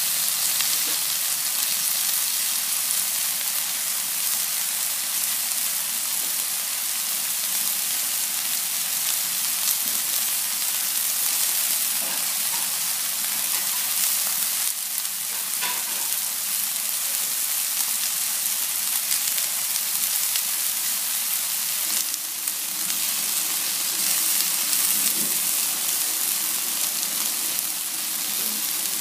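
Chicken strips sizzling steadily on a hot ridged grill pan, with a few small crackles.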